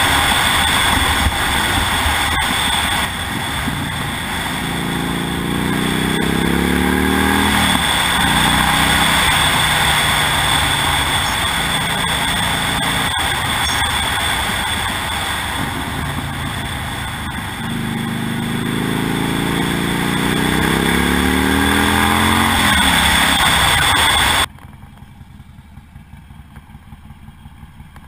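Harley-Davidson Nightster 1200 air-cooled V-twin with a Vance & Hines Blackout 2-into-1 exhaust riding at speed under heavy wind noise on the handlebar camera; the exhaust note climbs twice as the bike accelerates. About four seconds before the end the wind and engine sound drop suddenly to a much quieter level.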